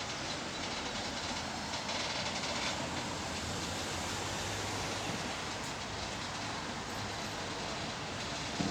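Freight train rolling past, wagons running by with steady rail noise and some wheel clatter.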